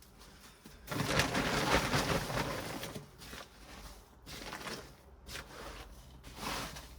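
Rustling and scraping of a potato grow bag and its potting mix being shifted. It is loudest for about two seconds starting about a second in, then a few quieter rustles follow.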